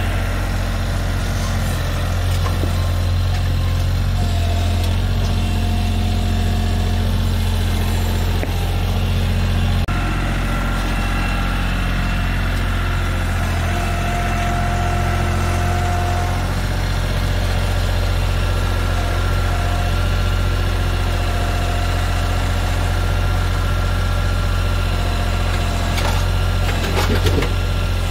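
Bobcat CT2040 compact tractor's diesel engine running steadily, with hydraulic whine as the front-loader grapple carries and handles logs. A few knocks near the end as logs are set onto a firewood processor's log deck.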